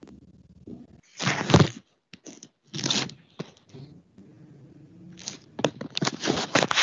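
Irregular bursts of rustling and scraping noise, the loudest about a second in, with a busier run of them near the end.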